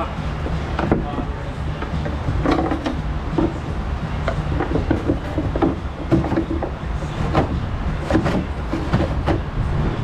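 Sheet-metal fuel tank shield being offered up under a pickup's frame: scattered knocks and scraping rattles of metal against metal. A steady low hum runs underneath.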